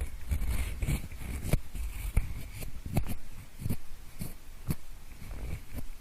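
A pencil scratching and tapping right against a microphone, imitating the sound of ear cleaning: irregular scratchy strokes with short taps and soft low thuds every half second or so.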